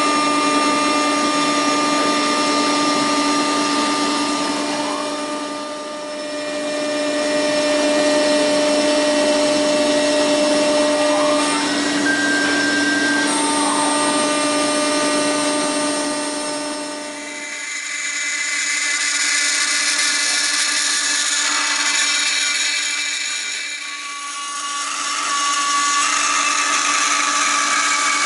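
CNC milling machine's spindle running with the end mill cutting a polyacetal (POM) workpiece: a steady whine over cutting noise, easing off briefly three times.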